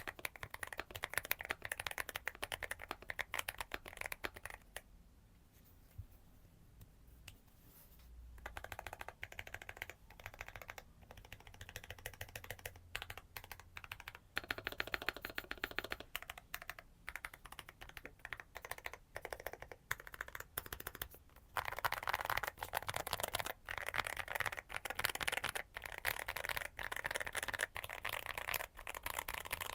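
Typing on a mechanical keyboard with Aflion Ink tactile switches: a dense run of keystrokes with a pause of a few seconds near the start, then faster, louder typing over the last third.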